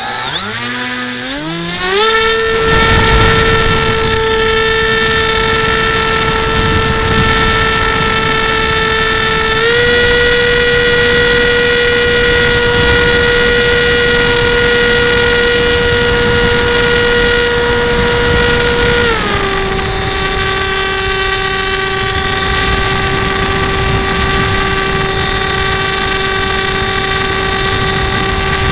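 RC plane's electric motor and propeller whining as it spins up over the first two seconds, then holding a steady pitch. The pitch steps up slightly about ten seconds in and drops lower about nine seconds later as the throttle changes. Rushing wind runs under it, picked up by the camera riding on the plane.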